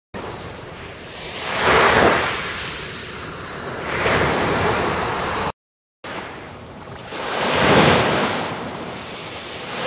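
Ocean surf: waves breaking and washing in, swelling and falling about every two to three seconds. The sound cuts off briefly a little past halfway, then the waves start again; this second run is the MMAudio AI-generated wave sound, heard after the original recording.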